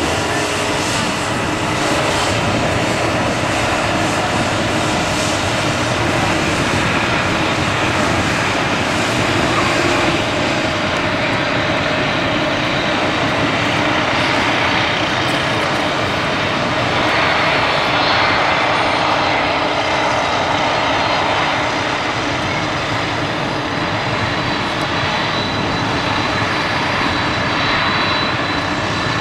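The four jet engines of a Boeing 747-400, loud and steady, as the airliner rolls out along the runway after landing. A continuous roar with a few faint steady whistling tones, swelling slightly now and then.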